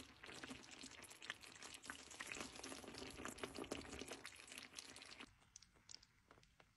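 Faint bubbling and popping of a creamy sauce simmering in a skillet, as a rapid crackle of small pops that dies away about five seconds in.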